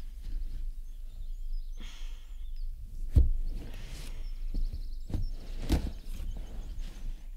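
A distraught woman's sighing breaths, with two soft thumps as she shifts on a sofa, over a steady low hum.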